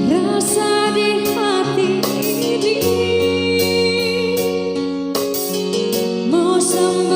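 A song with a sung melody over keyboard chords and a steady drum beat.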